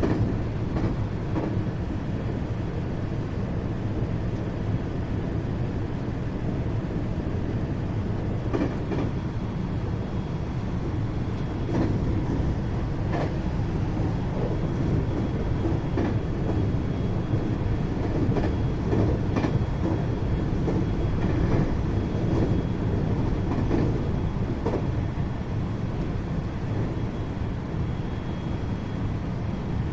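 521 series electric multiple unit running at speed, heard from inside the motor car KuMoHa 521-30: a steady rumble of wheels and running gear with occasional sharp rail-joint clicks and a faint steady high whine.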